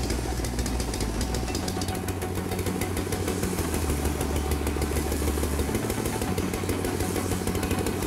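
Walk-behind lawn mower's engine running steadily while cutting tall grass. Its low hum shifts slightly twice.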